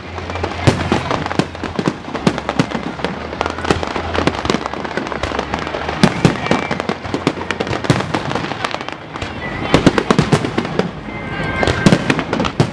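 Aerial fireworks bursting in rapid, overlapping succession: a dense run of sharp bangs and crackles, with music playing underneath.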